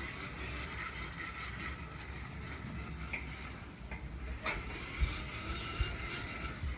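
Food sizzling on a barbecue grill, a steady hiss, with a few sharp clicks in the middle and two low knocks near the end.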